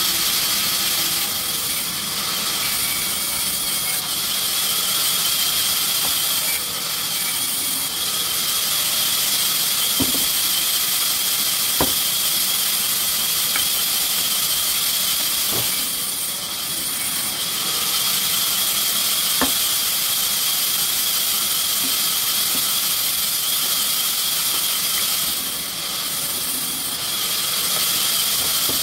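Sawmill machinery running: a steady, high-pitched hiss with a few faint clicks.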